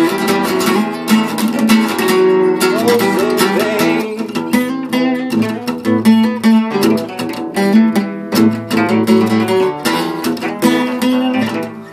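Solo acoustic guitar played freely, improvised: a quick flow of plucked notes mixed with strummed chords, dying away near the end.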